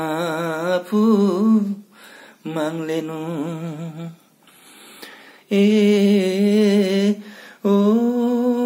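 A man singing a Limbu hakpare samlo unaccompanied: slow, drawn-out phrases of long wavering held notes, broken by short pauses for breath.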